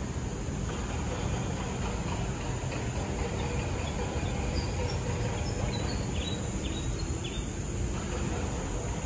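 Steady low rumble of city traffic heard across a park, with a steady high hiss above it and a few faint high chirps past the middle.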